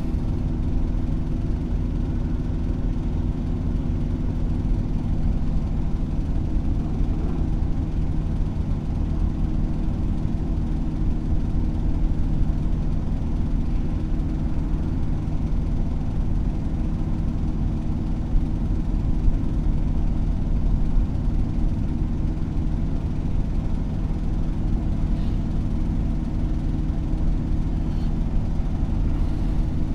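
A large engine idling steadily: a low hum that holds the same pitch throughout.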